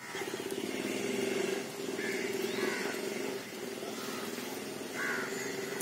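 A steady, pulsing motor drone runs throughout. A bird calls in short descending chirps at the start, about two seconds in, and again about five seconds in.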